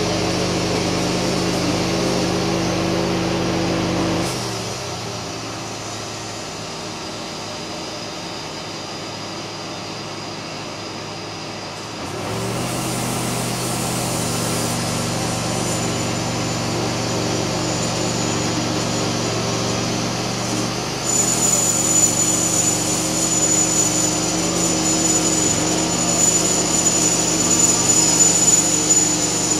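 Homemade bandsaw mill's engine running steadily under load as the blade cuts through a large spruce log. About four seconds in the sound drops quieter for some eight seconds, then returns, and a thin high whine joins about two-thirds of the way through.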